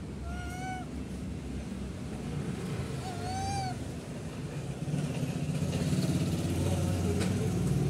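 Two short coo calls a few seconds apart, each a clear tone that rises and then falls, of the kind a rhesus macaque makes, over a steady low hum that grows louder about five seconds in.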